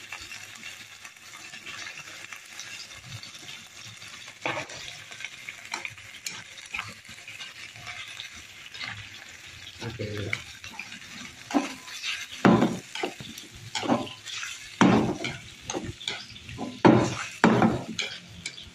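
Ribs and vegetables sizzling in a frying pan, with chopsticks stirring and knocking against the pan in irregular strokes. The strokes get louder and more frequent in the second half.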